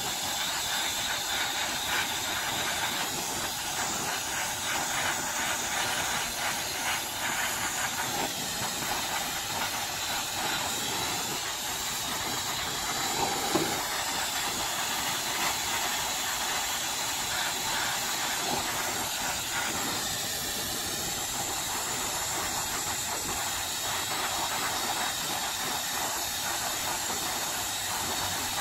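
Oxy-fuel torch flame hissing steadily while it heats a steel bolt to cherry red, with one brief knock about halfway through.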